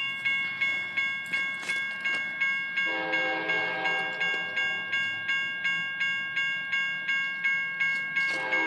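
Railroad crossing bell dinging rapidly, about three strikes a second, while a locomotive's first-generation Nathan K5LA five-chime horn sounds a blast about three seconds in that fades after a couple of seconds, then starts another near the end.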